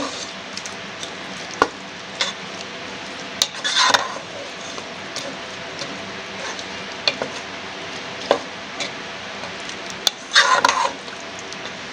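A spatula stirring raw chicken pieces through yogurt, spice paste and oil in a pot: a wet squelching and sloshing with the odd sharp tap of the spatula on the pot, and louder squelches about four seconds in and near the end.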